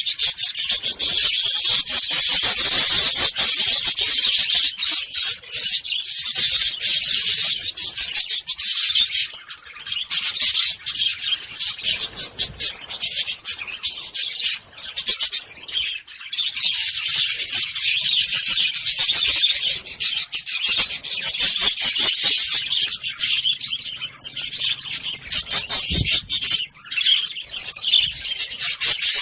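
Lovebirds chattering: a dense, continuous stream of rapid high-pitched chirps, with a few brief lulls.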